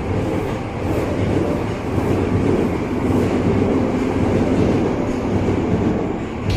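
Yokohama Municipal Subway Blue Line train passing through an underground station at speed without stopping, a steady loud rumble with the wheels clicking over rail joints about twice a second.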